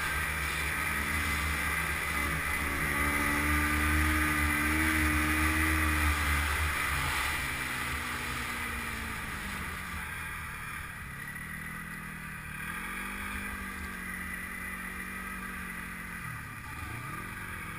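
Snowmobile engine running as the sled travels over packed snow. It is louder under throttle for the first several seconds, then eases off and runs lower and quieter. Near the end its pitch dips and comes back up.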